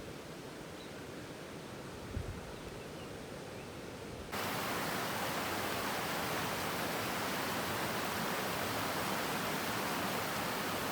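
Steady rushing sound of water. There is a brief low thump about two seconds in, and about four seconds in the rushing abruptly turns louder and brighter.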